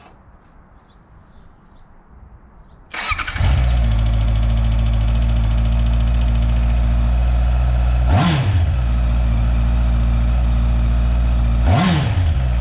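Honda CBR650R's inline four-cylinder engine, fitted with a K&N sport air filter, starting about three seconds in and settling into a steady idle, with two quick throttle blips that rise and fall in pitch, one near the middle and one near the end.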